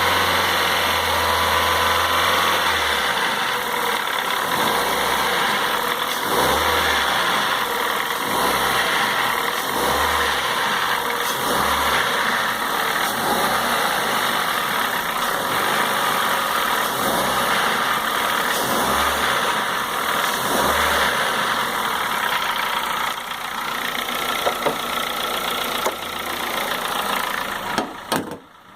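A 2004 Honda Fit 1.4 petrol four-cylinder engine idling with its bonnet open, making an abnormal engine noise that the owner finds troubling and that he says eases a great deal at high revs.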